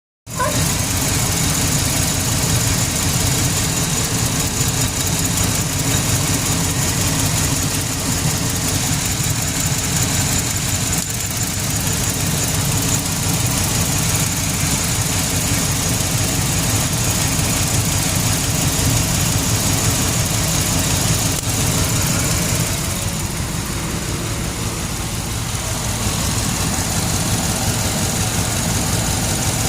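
GMC Sierra's LS V8 engine idling steadily while it is checked for a misfire. It dips slightly in level for a few seconds about 23 seconds in, then comes back.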